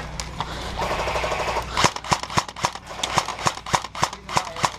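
Airsoft guns firing: a short rapid rattling burst about a second in, then a string of sharp separate pops, several a second.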